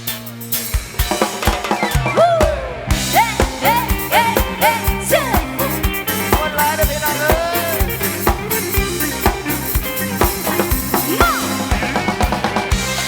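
Live band playing an instrumental passage in Thai Isan style: a drum kit keeps a steady beat under a lead instrument playing bending, sliding notes.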